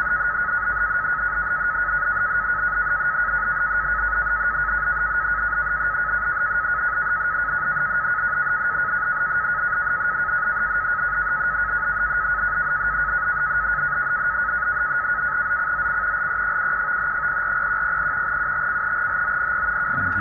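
NAVTEX data signal from the Tecsun PL-365 radio's speaker in upper sideband: a steady, fast warbling two-tone data tone over receiver hiss, without a break. It is the 100-baud frequency-shift-keyed broadcast on 518 kHz being received and decoded.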